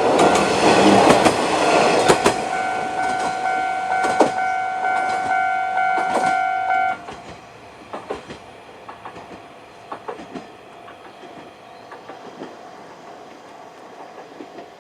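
A level crossing's electronic warning bell rings steadily as an Isumi 350 diesel railcar passes over the crossing, its wheels clacking over rail joints. About seven seconds in the bell cuts off as the train clears the crossing, leaving fainter wheel clicks as the railcar moves away.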